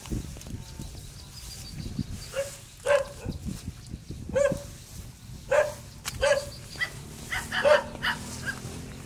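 A dog barking, a string of about ten short barks starting about two seconds in. Under the barks is low rustling, like footsteps through dense weeds.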